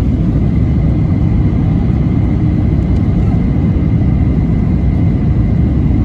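Jet airliner cabin noise heard inside the cabin: a steady low rumble of engines and airflow, with a faint steady high whine.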